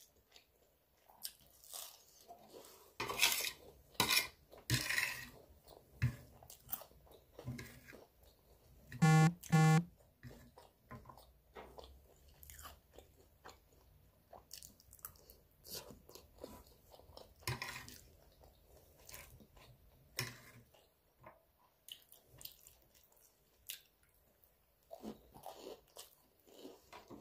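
Close-up chewing and biting while eating spaghetti, with irregular wet mouth sounds and occasional crunchy bites. Two brief pitched hums come about nine seconds in.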